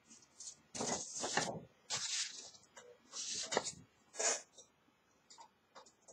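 A folded paper card rustling as it is handled, in about four short rustles.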